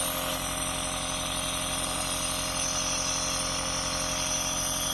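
Compressor nebulizer running with a steady, even mechanical hum as it nebulizes the inhalation medicine.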